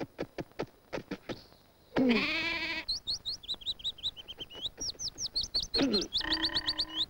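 Short quick taps, then a sheep bleats once, loudly. Rapid high bird chirping follows, about six chirps a second, and near the end comes a second bleat, falling in pitch and then held, under the chirps: cartoon sound effects.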